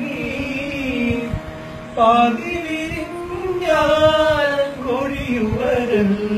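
A man singing a Malayalam love song unaccompanied, holding long notes that waver in pitch, with a short break about two seconds in.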